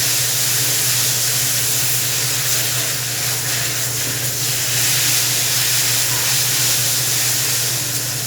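Food sizzling steadily on a hot teppanyaki griddle, an even hiss over a steady low hum.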